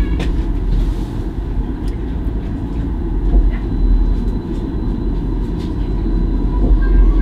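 Stadler Variobahn light-rail tram running along the track, heard from inside near the driver's cab: a steady low rumble of wheels and running gear, with a faint high steady whine and a few light clicks.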